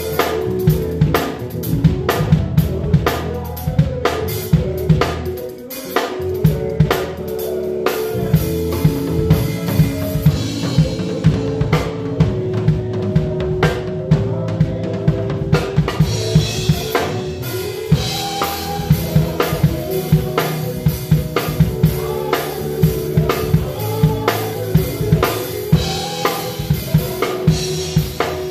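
Live band music with a drum kit played close up: dense snare and bass drum hits and cymbals over held chords from the other instruments.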